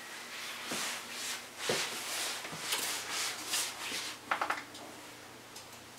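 Footsteps and the swish of a heavy winter coat as a man walks, about two steps a second, with a few light clicks about four seconds in.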